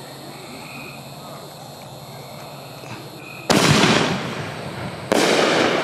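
Two loud firework shots from aerial consumer fireworks, about a second and a half apart, each fading over about a second, with quiet outdoor background before them.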